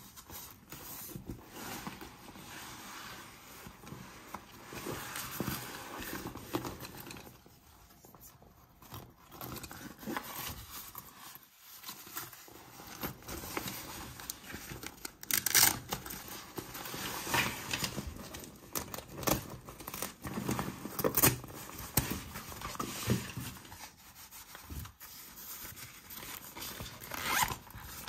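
Hands handling a fabric backpack and its round zippered front pouch: continuous rustling and scraping of the fabric, with sharper scrapes and clicks now and then.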